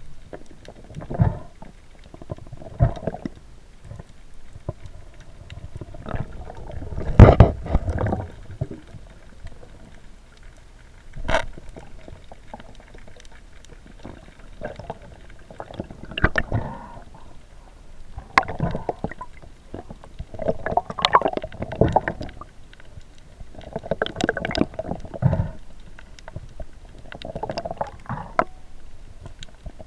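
Muffled underwater gurgling and water movement picked up through a camera housing, coming in irregular bursts every second or two, the loudest about seven seconds in.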